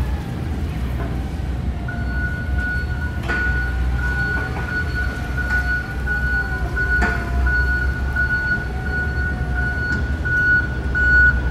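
Hyster E30HSD stand-up electric forklift driving: a whine that wavers up and down in pitch, joined about two seconds in by a high, steady pulsing beep from its reverse alarm, with a couple of sharp clicks.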